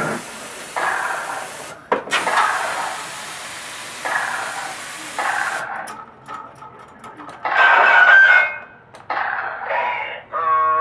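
Coin-operated shooting gallery game sounds: a sharp click about two seconds in, then a run of short sound effects about a second apart, a brief steady tone, and a pitched electronic tone near the end.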